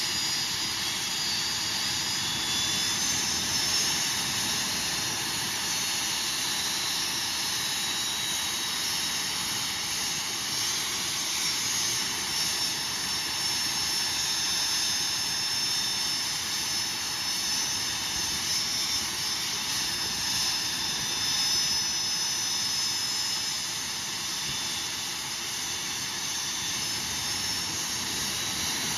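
TS-11 Iskra's single turbojet engine running steadily on a ground test: a constant jet rush with a high-pitched whine riding over it.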